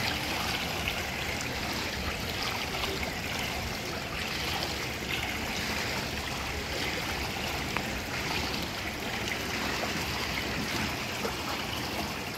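Steady rushing water noise heard underwater in a swimming pool, with faint scattered ticks.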